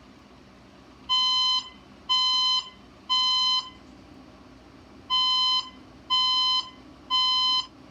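Fire alarm voice-evacuation speaker sounding the temporal-three evacuation tone: three half-second beeps about a second apart, a pause, then three more. Each beep is one steady, buzzy tone.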